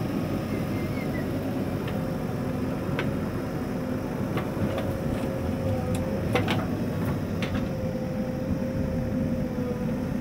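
Diesel engines of a Mahindra 475 DI tractor and a JCB 3DX backhoe loader running steadily, with a wavering drone through them. A few short knocks and clanks come as the backhoe bucket tips soil into the steel tractor trolley, the loudest about six seconds in.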